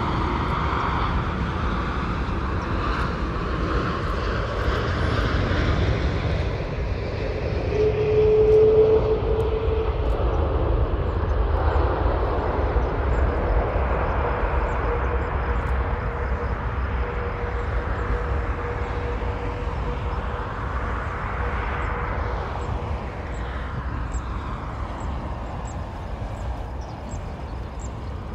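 Airbus Beluga XL's Rolls-Royce Trent 700 jet engines during its landing, a continuous deep rumble and roar. About eight seconds in, the sound swells and a steady tone sets in. The sound then slowly fades.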